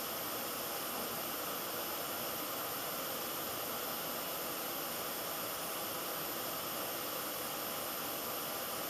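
Steady, even background hiss of the recording, with no other sound.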